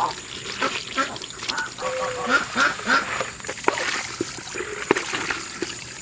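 Ducks quacking several times in short calls, with water from a garden hose running and splashing over a plastic poultry waterer.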